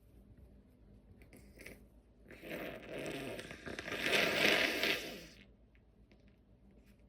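A person blowing their nose: one long, noisy blow of about three seconds that builds to its loudest near its end. A few faint crackles come just before it.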